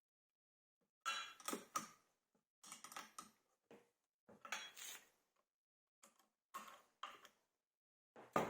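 Metal parts being handled: short bursts of clinking and clattering, about five in all, with brief pauses between them.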